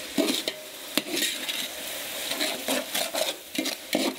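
Metal slotted ladle stirring and scraping fresh tomato wedges and browned onions through hot oil in a large metal pot, over a steady sizzle, with a sharp clank of the ladle on the pot about a second in.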